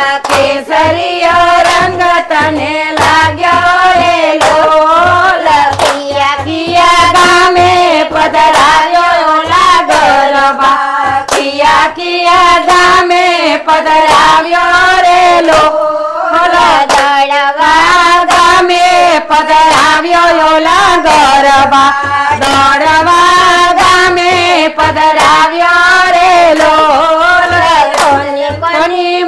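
A group of women singing a Gujarati garba folk song together, clapping their hands in a steady rhythm as they dance.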